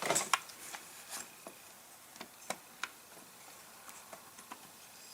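Scattered light clicks and taps of small chainsaw carburetor parts being handled and fitted, a few close together at the start and then single ticks every half second or so.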